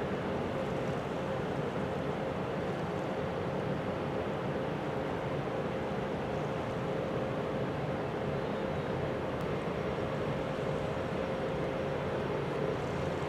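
Steady mechanical drone of a small container ship's engine and onboard machinery carried across the water, with a constant hum-like tone over a low rumble.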